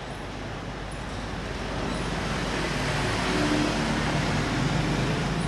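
Steady background noise of the location: an even rumble and hiss over a constant low hum, growing louder over the first few seconds.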